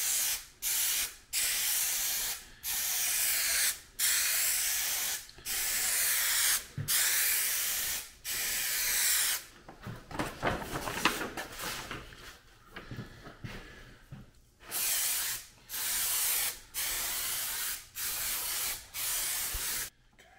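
Aerosol spray adhesive hissing in a series of short bursts, each about a second long with brief gaps. In the middle comes a few seconds of irregular rustling and crinkling from a stiff paper chart being handled, then the short sprays start again.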